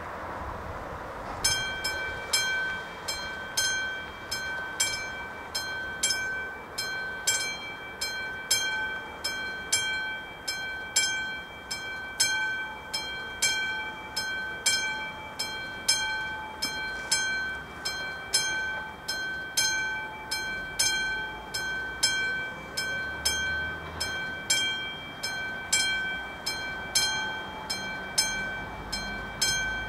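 Mechanical warning bell of an AŽD 71 level-crossing signal starting to ring about a second and a half in, then striking in a steady, regular rhythm, which signals that the crossing has activated for an approaching train.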